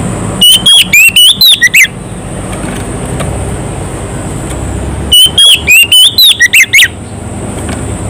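Oriental magpie-robin (kacer) singing two loud phrases of quick whistled notes that slide up and down, about half a second in and again about five seconds in. This is the full, loud 'gacor' song a male uses to call out a rival.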